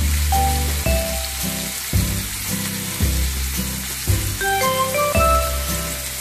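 Chicken pieces sizzling as they fry in oil in a nonstick pan. Background music plays over it, with a low bass note about once a second and a melody of higher notes.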